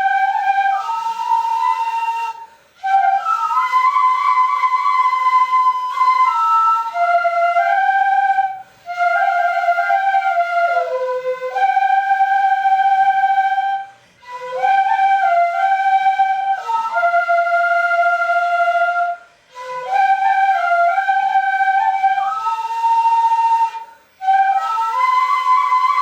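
An ensemble of shinobue (Japanese bamboo transverse flutes) in 5-hon chōshi plays a slow melody together. The melody comes in phrases, each ended by a brief pause for breath about every five to six seconds.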